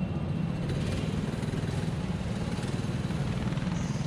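A rental go-kart's engine running steadily at low, pit-lane speed, heard from on board the kart, with an even, slightly rattly low note.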